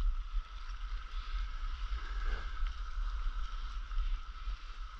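Wind rumbling on the microphone over water sloshing around a stand-up paddleboard moving on the sea.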